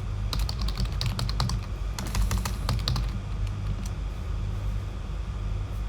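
Typing on a computer keyboard: a quick run of keystrokes in the first half, then sparser taps, over a steady low hum.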